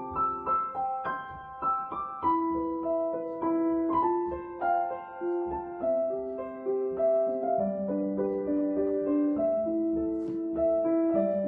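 Background piano music: a slow, gentle melody of single notes over soft chords.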